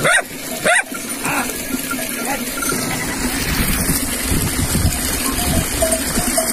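A dog barks twice in quick succession at the start, with a fainter call about a second later, then a steady rushing noise carries on underneath.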